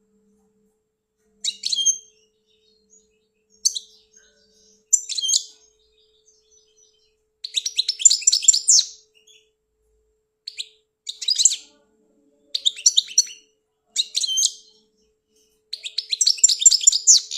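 European goldfinch singing: short bursts of rapid, high twittering song phrases broken by pauses of a second or so, the longest phrases about a third of the way in and near the end. A faint steady low hum lies under it.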